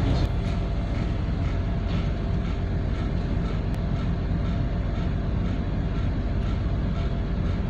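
Steady low rumble and hum of a ship's engines and machinery heard on the bridge while the vessel gets under way, with a faint ticking about twice a second.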